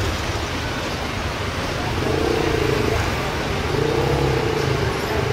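Jet airliner engines running at idle: a steady low rumble, with a faint hum that swells about two seconds in and again near the end.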